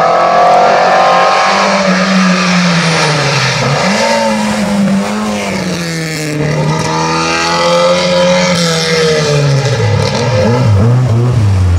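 Historic rally cars driven hard through bends, their engine note climbing and dropping over and over with gear changes and lifts off the throttle.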